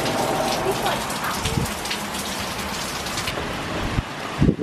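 Hurricane rain and gusting wind: a steady dense rain hiss with streaks of gusts. The hiss thins about three seconds in, and a few low thumps of wind buffeting follow near the end.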